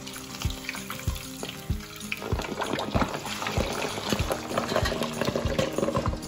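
Pork belly deep-frying in a pan of hot oil. The sizzling and crackling swells loudly about two seconds in, as the slab is turned over with tongs onto its other side. Background music with a steady beat plays underneath.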